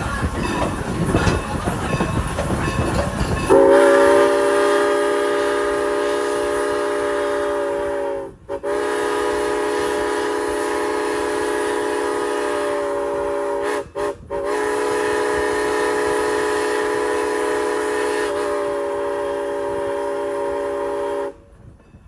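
Norfolk and Western 475's steam whistle sounding a chord of several notes in the grade-crossing pattern: long, long, short, long. A low rumble of the running train comes before it.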